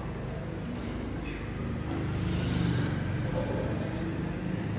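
Steady low rumble of background noise in a sports hall, swelling slightly midway, with a few faint taps.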